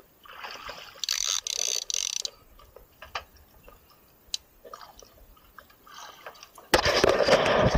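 Fishing reel being wound in the first couple of seconds, then light clicks and handling, and a sudden loud splashing near the end as the hooked tuna is gaffed at the boat's side.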